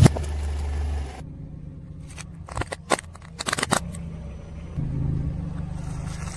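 A car's engine runs at low speed as its tyre crushes brittle objects. There is a sharp crack right at the start, then a cluster of crunching cracks and snaps about two and a half to four seconds in.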